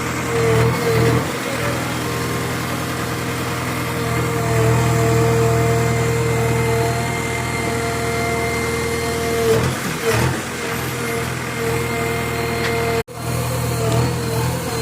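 JCB 3DX backhoe loader's diesel engine running steadily while digging, its pitch dipping briefly twice, about a second in and again about ten seconds in. The sound cuts out for an instant near the end.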